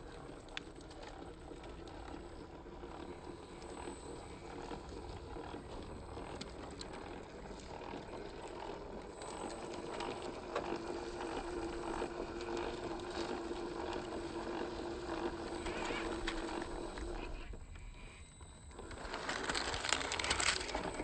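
Small electric motor and gearing of a 1/10-scale RC crawler whining steadily, with scattered clicks and crunches from its tyres on rough ground.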